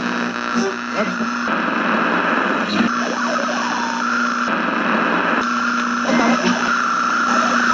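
Radio static and hiss with a steady hum and a whistling tone, the noise changing abruptly every second or two: an AM/FM radio being tuned between stations.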